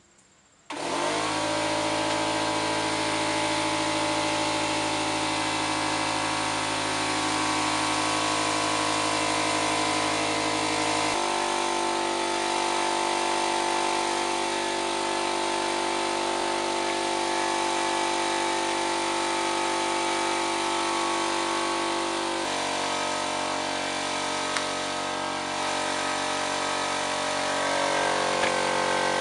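Electric random orbital sander motor running steadily at a high, even hum, switching on abruptly under a second in. Its tone changes suddenly twice, about a third and about two-thirds of the way through.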